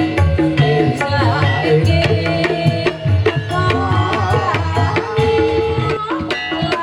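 Javanese gamelan music for a kuda kepang trance dance: kendang hand drums play a busy, rhythmic pattern over a stepping metallophone melody and steady low notes.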